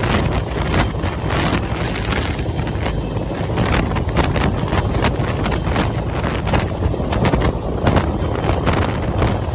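Rescue helicopter hovering close overhead during a hoist, its rotor and engine noise mixed with heavy rotor-wash wind buffeting the microphone.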